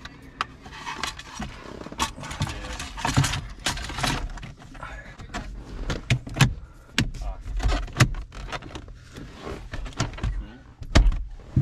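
Irregular sharp clicks and knocks with light rattling, as parts are handled and fitted inside a car's cabin, with a couple of louder knocks near the end.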